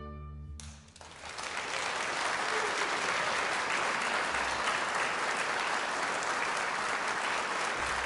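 The orchestra's last low chord dies away, then an audience breaks into steady applause about a second in.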